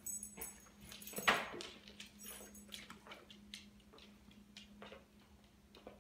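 Dogs moving about on a laminate floor: claws clicking and scrabbling in short irregular taps, with a louder scuffle about a second in as the Labrador shifts on and off its bed.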